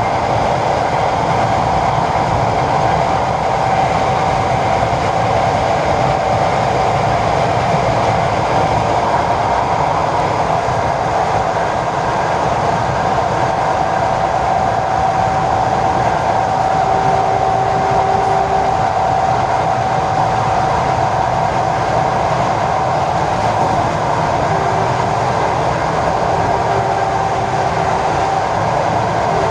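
ED4M electric train running steadily along the line, as heard from inside the carriage: an even rumble of wheels on rail with a steady whine. A fainter, lower whine comes and goes in the second half.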